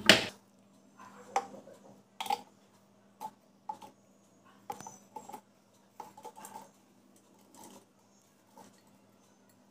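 Watermelon chunks tipped from a bowl into a clear plastic blender jar: a sharp knock at the start, then a string of soft, irregular knocks and thuds as the pieces drop and slide in.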